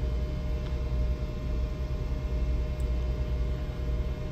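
Steady low drone of a ship's running machinery, with a thin constant whine above it.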